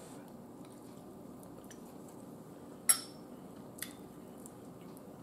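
A metal fork set down in a bowl with one sharp clink about three seconds in, followed by a lighter tap just under a second later, over quiet room tone.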